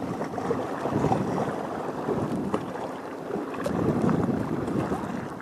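Wind on the microphone and small waves washing against the shore, swelling about a second in and again near four seconds.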